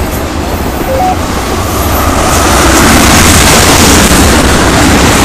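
Freight train of tank cars rolling past close by: steady noise of steel wheels running on the rails, growing louder about two seconds in.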